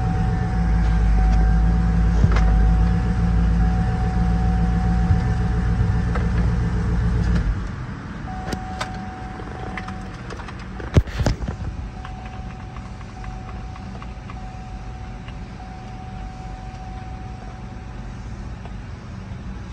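The 2005 GMC Yukon's 6.0-litre V8 idling steadily, heard from inside the cab. Its low running sound drops noticeably about seven and a half seconds in. There is a single sharp click about eleven seconds in.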